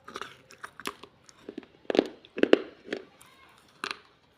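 Pieces of baked clay pot being bitten and chewed, a string of sharp, irregular crunches with the loudest a little before the middle and near the end.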